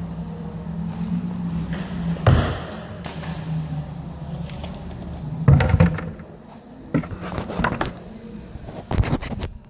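DeWalt concrete grinder (an angle grinder with a diamond wheel and dust shroud) running at speed on concrete, with two loud grinding surges; it stops about six seconds in, and a few short knocks follow as it is handled.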